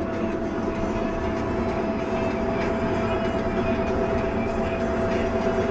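Engine and road noise of the armoured tornado intercept vehicle, heard inside its steel cabin as it drives: a steady drone with a constant whine and small rattles throughout.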